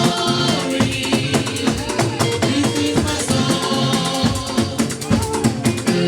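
Choir singing a hymn, backed by drums and shakers or tambourine keeping a fast, steady beat.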